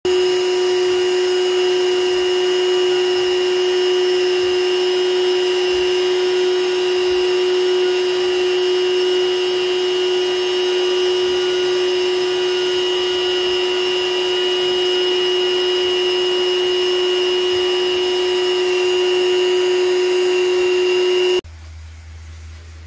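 Vacuum cleaner motor running steadily with a high whine as its hose nozzle is worked over fabric sofa upholstery. Near the end it cuts off suddenly, leaving a much quieter low hum.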